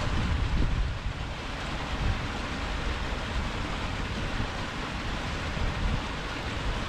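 Wind buffeting the microphone, a low uneven rumble over a steady, even hiss.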